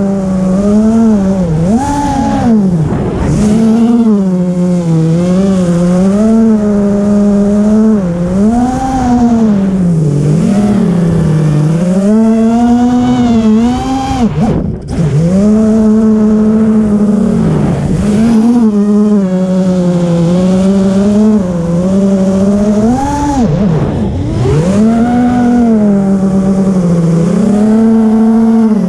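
FPV racing quadcopter's electric motors and propellers whining, the pitch rising and falling over and over with the throttle. The sound dips and cuts out briefly about fifteen seconds in, then picks up again.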